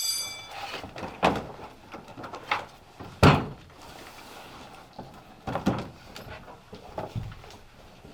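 A series of irregular knocks and thuds, about six of them, the loudest about three seconds in.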